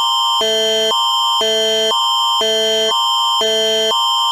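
Canadian Alert Ready attention signal: a loud electronic alarm that alternates between two chords about every half second over a steady high tone. It marks the start of an emergency alert broadcast.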